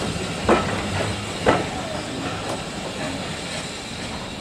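Steam-hauled passenger carriages rolling slowly past over pointwork, wheels clacking sharply over rail joints twice about a second apart, over a steady rumble of the train on the track.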